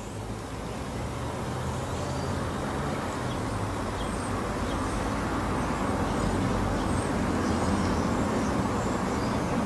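Steady low background rumble and hiss that grows slowly louder.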